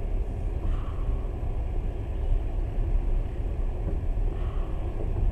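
Moving passenger train heard from inside the carriage: a steady deep rumble of the wheels running on the rails.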